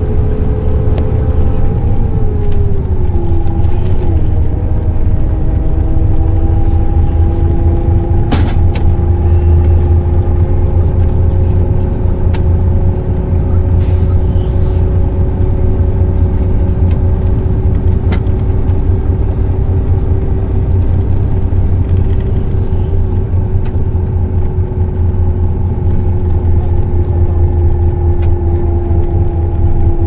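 A car in motion at road speed: a loud, steady low rumble of road and engine noise with a droning tone. The tone dips in pitch about two to four seconds in, then holds steady. A few faint clicks sound over it.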